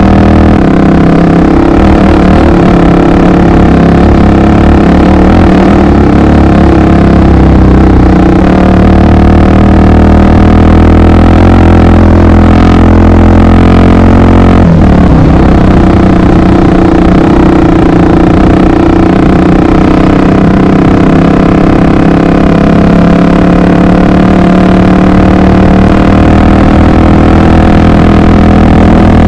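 Honda XR 250 Tornado's single-cylinder four-stroke engine running at a steady cruising speed on the move, its pitch shifting briefly about halfway through.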